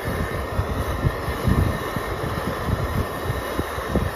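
Camp stove burner running steadily under a pot of water, with wind gusting against the microphone in low, uneven rumbles.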